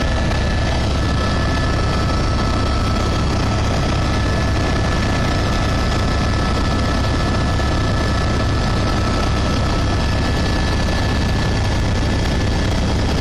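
Helicopter in flight heard from inside the cabin: a loud, steady engine and rotor rumble with a constant high whine on top.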